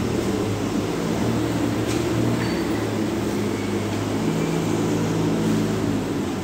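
Forklift engine running steadily, its pitch shifting in small steps as it works, with a single faint click about two seconds in.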